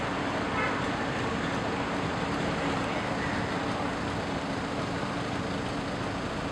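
Steady mechanical hum with a constant low drone and an even wash of noise over it, without change.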